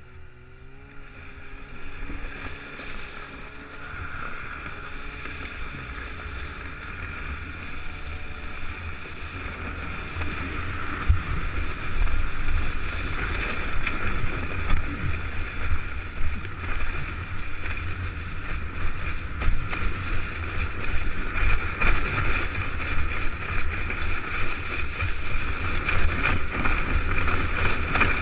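A sled towed over rough, packed snow behind a snowmobile: a steady rush of wind on the microphone and the sled rumbling and knocking over the snow, growing louder as it picks up speed over the first dozen seconds. At the start the snowmobile's engine is heard rising in pitch as it pulls away, then it sinks under the noise.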